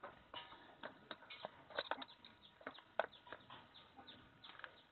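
Chickens clucking in short, irregular calls, with a sharp click about three seconds in.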